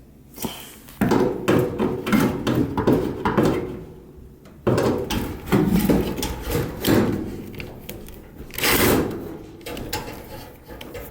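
Irregular clattering and knocking as dryer panels and parts are handled, with sharp starts about a second in and again a few seconds later.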